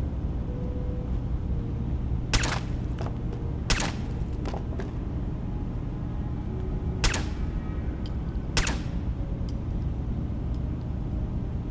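Four pistol shots, in two pairs about a second and a half apart, over a steady low rumble.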